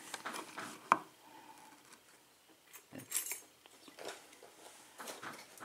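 Faint, scattered metal clicks and clinks from handling a picked pin-tumbler cylinder lock and small tools, with one sharper click about a second in.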